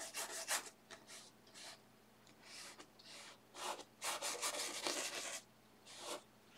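Paintbrush scrubbing oil paint onto textured canvas in a series of short scratchy strokes, with a longer stretch of scrubbing about four seconds in.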